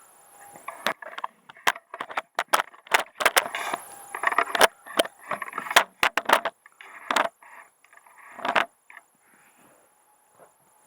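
A puppy playing with and mouthing a toy: a rapid, irregular run of sharp clicks and knocks mixed with short scraping and rustling bursts, which dies away about three-quarters of the way through.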